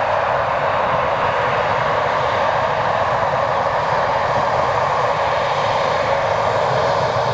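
Embraer 190's twin GE CF34-10E turbofan engines running at low taxi power as the jet rolls past on the ground: a steady, even jet whine and rush with no change in pitch.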